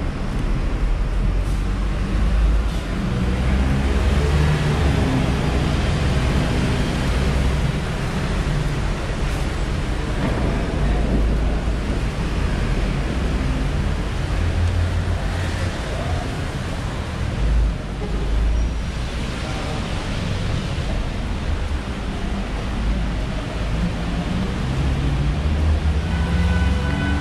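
Rainy city street ambience: a steady hiss of rain and wet pavement under a low rumble of traffic, with faint voices of passers-by.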